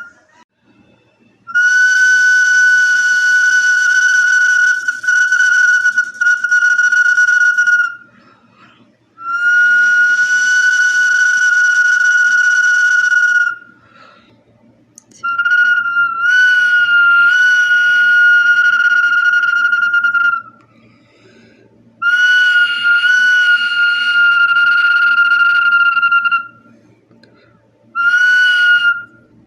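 Whistle bottle (botella silbato) blown in long, breathy whistle notes at one steady high pitch, five notes of about one to six seconds each with short breaks between them. A few notes near the middle waver slightly in pitch.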